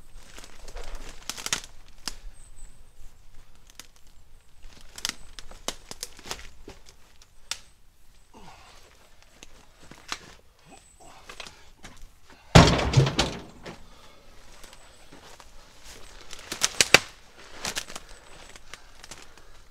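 Footsteps and brush crackling through dry leaves and twigs as cut firewood log rounds are handled, with one loud, heavy thud about twelve seconds in as a round hits the ground, and a cluster of sharper knocks a few seconds later.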